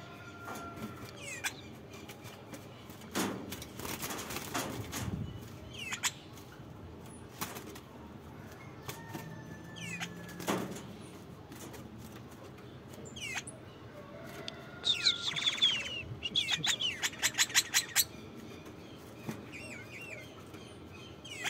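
Caged songbirds fluttering in a wire cage: several bouts of wing flapping, the loudest a dense flurry followed by a quick run of wing beats about three-quarters of the way through, with scattered short chirps between.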